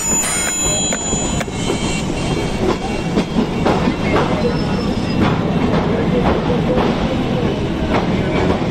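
Train running on the rails: a steady rumble with the wheels knocking over rail joints again and again.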